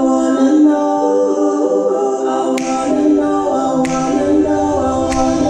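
A cappella vocal harmony: several voices holding chords, with a few sliding notes. Three sharp clicks land about a second and a quarter apart in the second half.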